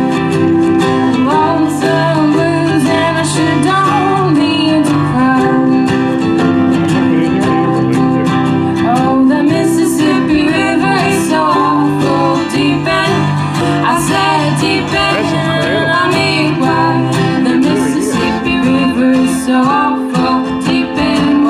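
Live acoustic string-band music: a strummed acoustic guitar playing an old-time blues tune, with singing.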